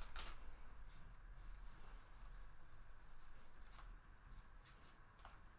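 Faint rubbing and light ticks of trading cards sliding over one another as a pack of 2022 Bowman Baseball cards is flipped through by hand.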